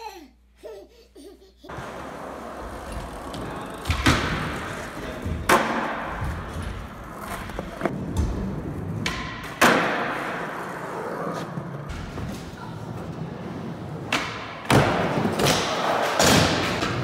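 Skateboard wheels rolling on indoor skatepark ramps and floor, broken by several sharp board pops and landing slaps a few seconds apart as nollie tricks are done. A baby babbles and laughs briefly at the very start.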